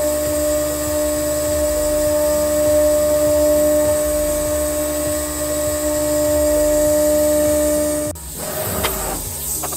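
CNC router spindle running with a steady high whine and hiss while a 90° V-bit engraves wood; the whine cuts off suddenly about eight seconds in.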